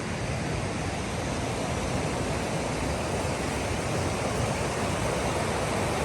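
Steady rush of river water running over rocks, an even noise with no breaks.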